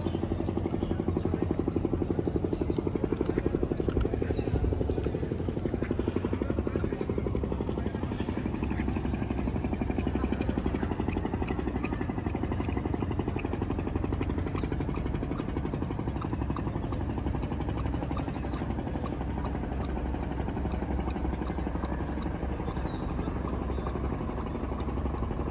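A small engine running steadily with a fast, even chug that holds at a constant level throughout.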